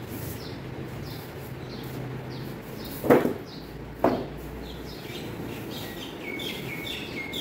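Small birds chirping repeatedly in the background, busier toward the end. Two sharp knocks about a second apart near the middle, as the polystyrene foam end cap from the air-conditioner unit's packing is set down on the floor.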